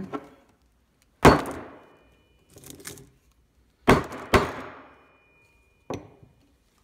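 Hammer striking a cracked Samsung smartphone on a hard surface: three sharp blows, the last two about half a second apart, then a lighter knock near the end.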